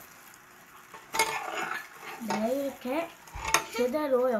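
Chicken pieces being turned by gloved hands in a thick marinade in a glass baking dish, with a metal spoon clinking sharply against the glass twice. From about two seconds in, a person's voice speaks over it.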